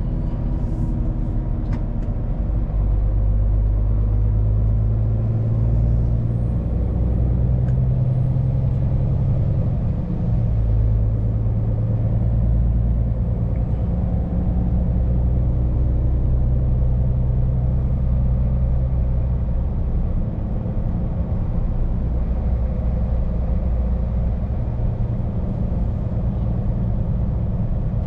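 Scania P410 truck's diesel engine running under way, a steady low hum whose pitch steps up and down several times as engine speed changes.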